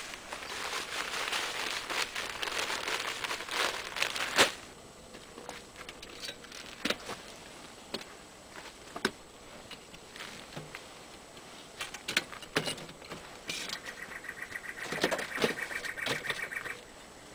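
Dry soil amendment poured from a sack into a wheelbarrow: a dense hiss and patter of falling grains for about four seconds, ending in a sharp knock. Scattered knocks and scrapes follow as the wheelbarrow is tipped and handled, with a rattling stretch near the end.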